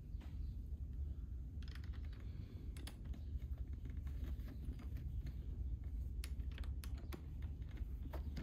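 Faint, irregular small metal clicks of two Allen keys turning against each other and a bolt head as a chair-frame bolt is tightened, over a low steady hum.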